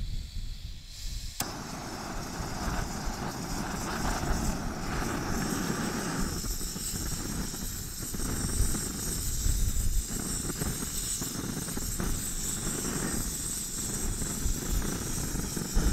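Canister gas camping stove lit a little over a second in, its burner then running with a steady hiss under the pot.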